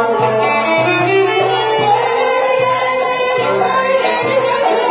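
A woman singing into a microphone over amplified instrumental accompaniment with a steady, repeating bass line.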